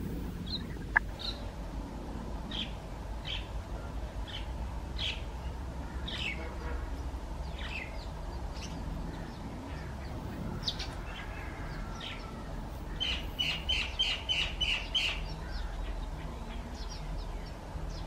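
Backyard birds calling: scattered short calls, then a quick even run of about seven calls near the end. A single sharp tick comes about a second in, over a steady low rumble.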